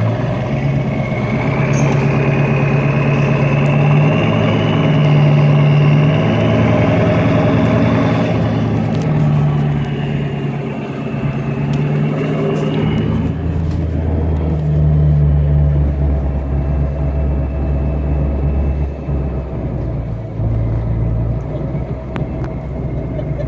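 Lifted Ford F-250 pickup's engine pulling steadily under load while towing a car through deep flood water, heard from inside the cab, with a whine that rises and falls over the first half. About halfway through the sound drops to a lower, deeper rumble.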